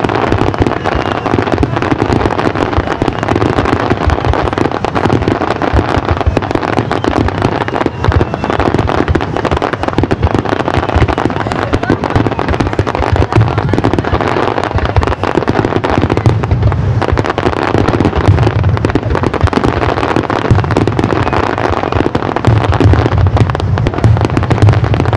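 Fireworks going off in a dense, continuous barrage: rapid bangs of bursting shells mixed with crackling, with no pause.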